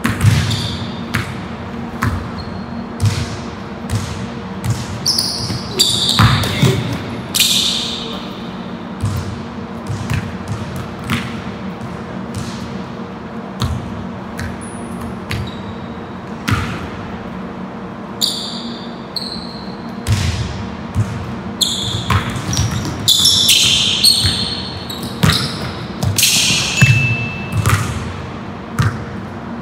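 Basketball dribbled on a gym floor in a large hall, the bounces coming in runs, with short high-pitched sneaker squeaks in bunches as the players cut and drive.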